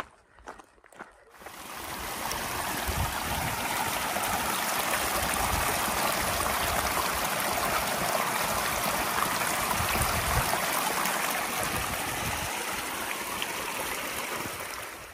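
Mountain stream rushing: a steady, even noise of running water that comes in about a second and a half in and cuts off at the end.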